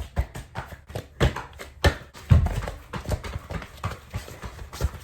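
Irregular clicks and light knocks, several a second, with a heavier thump about two and a half seconds in, from objects being handled.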